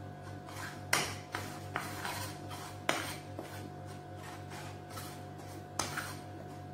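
A metal spoon scraping and clinking against a ceramic bowl while stirring dry flour and spices, with sharp clinks about one, three and six seconds in. Background music plays underneath.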